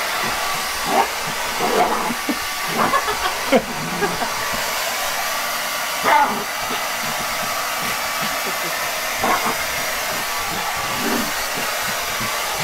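Handheld hair dryer blowing steadily, with a few short louder sounds over it about one, two, three to four, six and nine seconds in.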